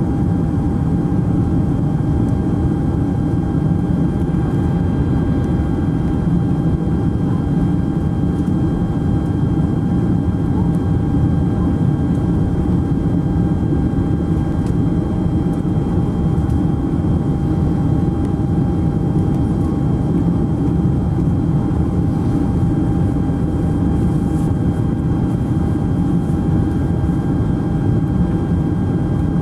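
Steady jet cabin noise inside a Boeing 747SP descending with its trailing-edge flaps extended. It is an even, deep rumble of engines and airflow, with a faint steady whine above it.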